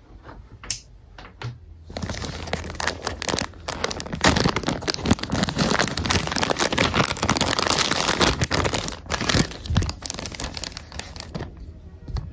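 Packaging of new phone cases being unwrapped by hand: a few light taps, then about two seconds in a dense run of crinkling and tearing that dies away near the end.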